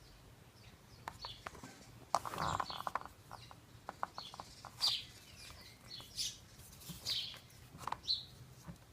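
Small birds chirping, short high calls repeating every second or so. About two seconds in comes a quick run of clicks and a rattle, as a mount is handled.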